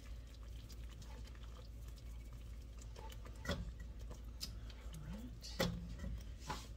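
Wire whisk stirring thick gravy in a skillet, with soft scrapes and light ticks against the pan and a couple of sharper clicks, the loudest about two-thirds of the way in.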